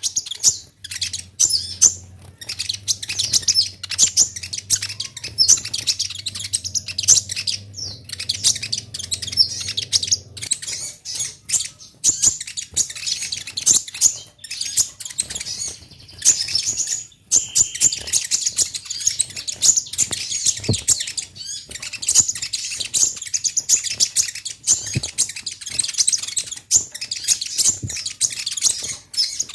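Kolibri ninja sunbird singing a fast, high twittering song of rapid chirps, almost without a break.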